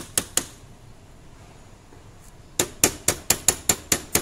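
Sharp metal-on-metal taps of a hand tool against a steel gear. Three quick taps at the start, a pause of about two seconds, then a fast run of about five taps a second.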